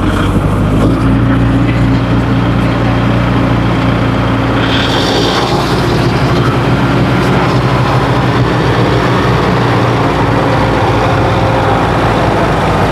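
Kubota MU5502 tractor's four-cylinder diesel engine running steadily under load as it drives a rotavator through wet paddy-field mud.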